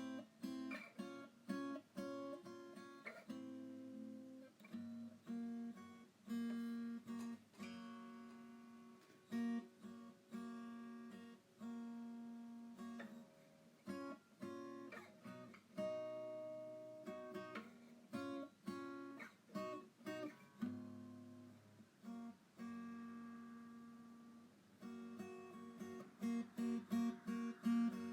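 Background music played on acoustic guitar, plucked and strummed chords.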